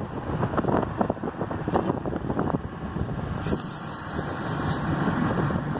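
John Deere 595D excavator's diesel engine running under load while it works, with irregular knocks and scraping from the digging. A hiss comes in a little over halfway.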